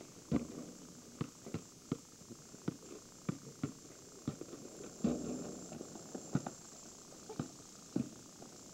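A basketball bouncing on a paved driveway as it is dribbled: a run of sharp, irregular thuds, a few a second, with two heavier knocks, one just after the start and one about five seconds in.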